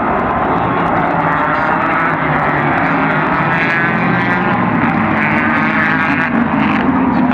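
A pack of sports-car racing cars accelerating past on a restart: many engines at high revs overlapping, their pitches rising and dropping as the cars pass and change gear.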